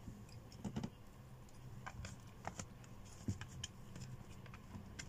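Eating by hand: quiet chewing and mouth sounds with scattered small clicks and taps as fingers pick food from a plastic takeaway tub. The sharpest click comes about three seconds in.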